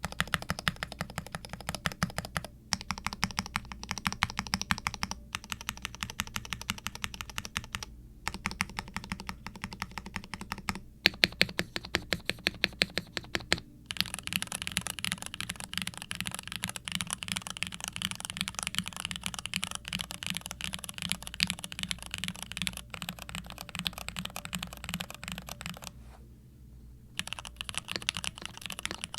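Continuous typing on a TKC Portico68 V2 mechanical keyboard with stock Cherry MX Hyperglide Red linear switches (nylon housings, 45 g springs), an FR4 plate, a gasket-mounted foam-filled plastic case and doubleshot ABS/PBT keycaps: a scratchy, full keystroke clatter. A few short pauses break it, and a run of louder strokes comes about a third of the way in.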